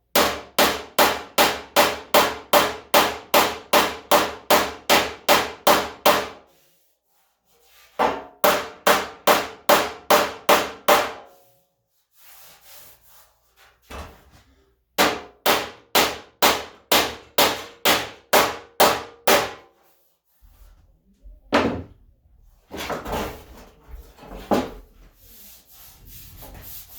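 Hammer blows on the steel front fender of a 1978 Ford F100, working out a dent: steady taps about three a second in three runs with short pauses, then a few scattered knocks and handling noise near the end.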